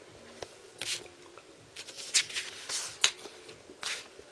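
Paper exam sheets being turned and handled: a run of short paper rustles, the sharpest about two and three seconds in.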